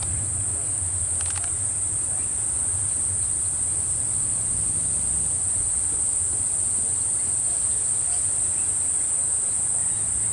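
A steady, high-pitched chorus of insects droning without a break, with a low rumble beneath it that fades about halfway through.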